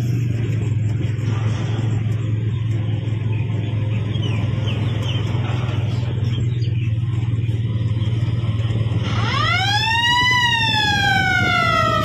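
A steady low engine drone, and about nine seconds in a siren-style horn on a decorated Hino heavy truck sweeps up in pitch, then slowly falls away.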